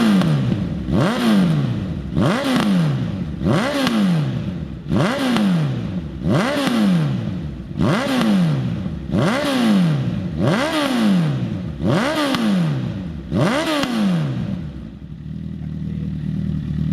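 Honda CB1000R inline-four engine through a Hurricane slip-on sport exhaust, blipped about ten times in a steady rhythm: each rev climbs quickly and falls back, then the engine settles to a steady idle near the end.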